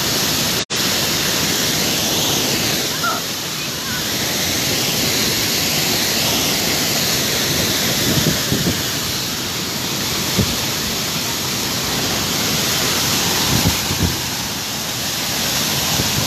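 Steady rush of a hot-spring waterfall pouring down, with a very brief break just under a second in and a few faint low thumps later on.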